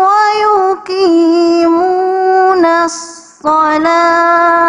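A woman's voice in melodic Quran recitation (tilawah), drawing out the end of "al-munkar" in long, ornamented held notes. About three seconds in she stops briefly and takes a quick breath, then begins the next phrase on a steady held note.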